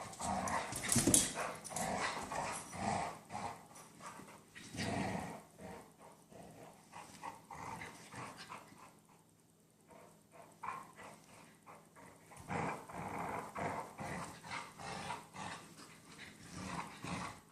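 Dogs growling in play during a rope tug-of-war, in irregular bursts, louder in the first few seconds and again near the end with a quieter stretch in the middle.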